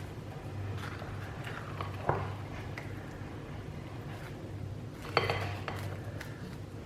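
A metal spoon scraping and knocking against a pan and bowl while thick chocolate fridge-cake mixture is spooned out, with small scrapes and two sharper clinks, one about two seconds in and a louder one about five seconds in.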